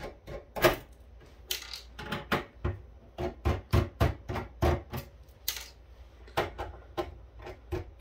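Hands taking apart a metal network-switch case: sharp irregular clicks and taps with a few short scrapes, then a regular run of clicks about three a second near the end as a screwdriver works at a case screw.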